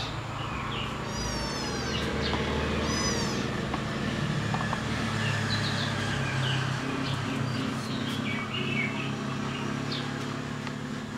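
Kittens mewing: high, falling mews about a second and three seconds in, then smaller chirpy calls, over a steady low hum.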